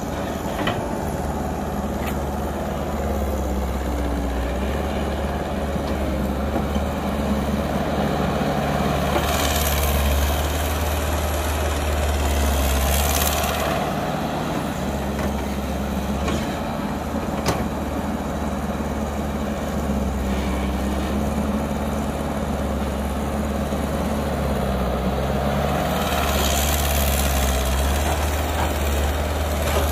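Diesel engine of a Caterpillar tracked hydraulic excavator running steadily as it digs and loads soil. Hissing swells come in about ten seconds in and again near the end.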